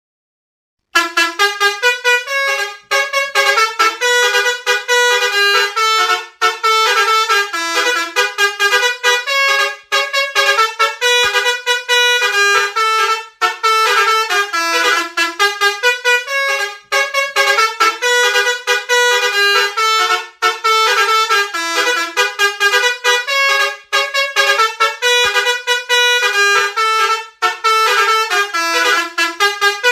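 Basuri telolet multi-tone bus horn playing a quick melody of stepping notes, starting about a second in and running on with short breaks between phrases.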